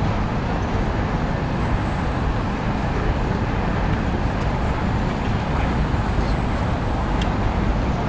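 Steady city background noise: a low, even rumble of distant traffic.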